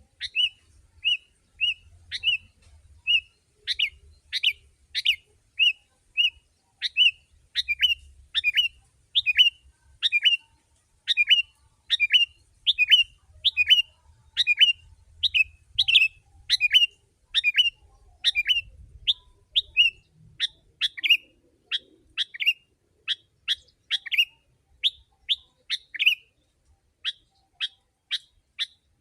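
Sooty-headed bulbul (kutilang) calling without a break: short chirps about once a second at first, then from about four seconds in a quicker run of about two calls a second, each a sharp note dropping in pitch.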